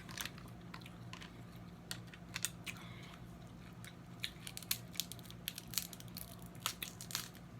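Close-up eating of snow crab legs: irregular sharp clicks and crunches of chewing and cracking shell, over a steady low hum.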